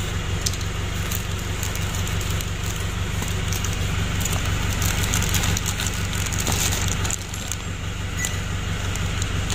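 Plastic packaging of an engine gasket kit crinkling and crackling as it is torn open and handled, busiest in the middle and easing off about seven seconds in. A steady low hum runs underneath.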